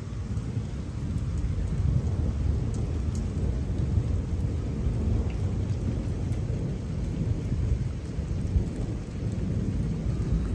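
Thunder rumbling on and on over steady heavy rain, with faint ticks of raindrops.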